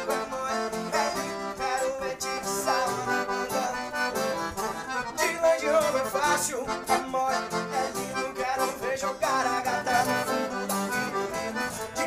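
A Philharmonic piano accordion plays an instrumental break in a sertanejo song, over band accompaniment with a steady drum beat.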